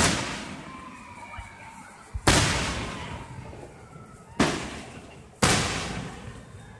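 Aerial fireworks shells bursting overhead: four loud bangs about one to two seconds apart, each trailing off in a long echoing rumble.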